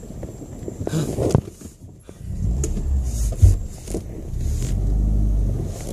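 A 2001 Subaru Legacy GT's engine rumbling and revving under load as the car is driven off-road, with a few clicks early on and a sharp knock about three and a half seconds in.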